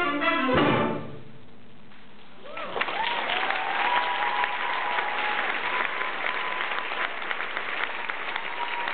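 A symphonic band's last chord, closed by a final percussion hit and cut off about a second in. After a brief hush, the audience breaks into applause with cheering, about two and a half seconds in.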